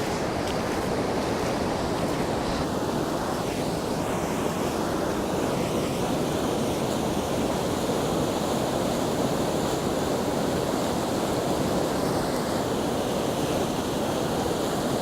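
River swollen by heavy rain rushing through a waterfall in flood: a steady, unbroken rush of water.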